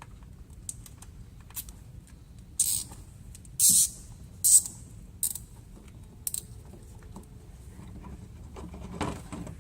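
Nylon zip tie ratcheting through its head in about five short zips, roughly a second apart, as it is cinched down.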